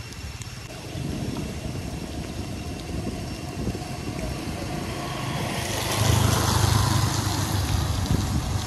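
Motor vehicle traffic on a wet road: a steady rumble with tyre hiss, which swells about six seconds in as a vehicle passes close by.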